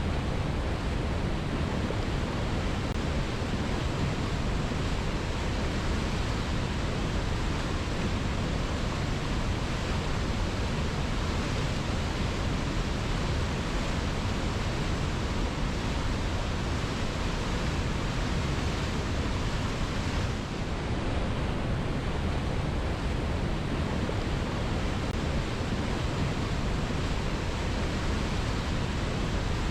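Waterfall cascading over rocks: a steady, even rushing of falling water, dipping slightly for a moment about two-thirds of the way through.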